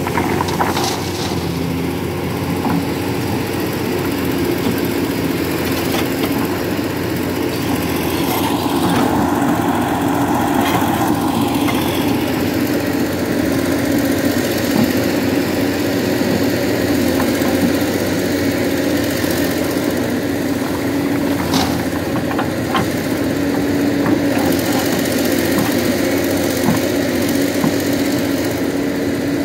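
Heavy diesel engines running steadily: the excavator working and the truck idling. A few short knocks come as the excavator bucket tips iron ore into the steel trailer.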